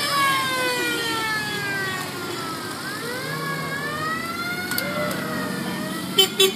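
A siren wailing, its pitch sliding slowly down, rising again about three seconds in, then falling once more, over steady street traffic noise. Near the end come a few short, loud car-horn toots.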